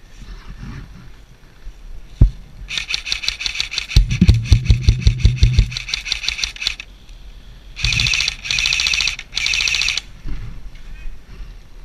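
Airsoft electric guns firing on full auto: one long burst of about four seconds with a run of heavy close thumps through its middle, then three short bursts of under a second each near the end. A single sharp knock comes about two seconds in.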